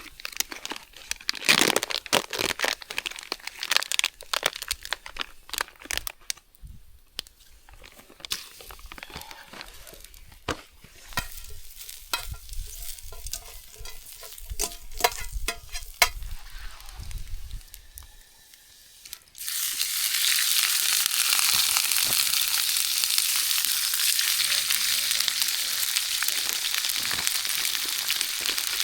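Clicks and knocks of utensils against cookware, then about two-thirds of the way in a loud, steady sizzle starts suddenly as food goes into a hot pan over a campfire and fries.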